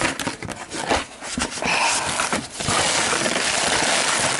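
Tissue paper crinkling and rustling as hands rummage inside a cardboard shipping box. It crackles in scattered bursts at first, then gives way to a steady, dense rustle over the last couple of seconds.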